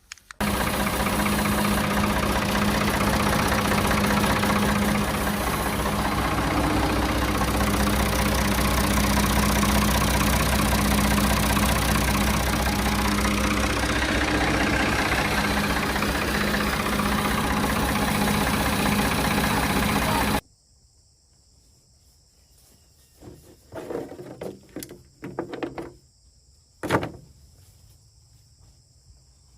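Ford 550 backhoe's engine running steadily, its newly fitted link V-belt turning. The sound cuts off suddenly about twenty seconds in, leaving a few faint knocks and one sharp click.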